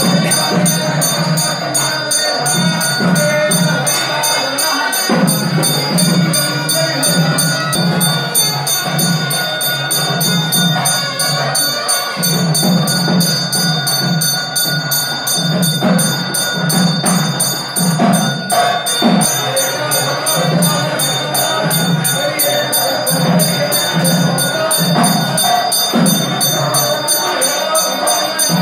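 Temple puja music during the aarti: metal percussion ringing in a fast, steady rhythm over a low beat about twice a second, with voices chanting or singing along.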